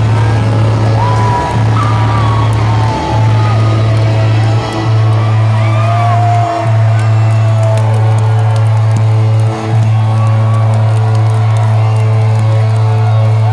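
Loud concert-hall mix of music with a steady low bass drone and a crowd cheering, whooping and whistling, the whistles gliding up and down.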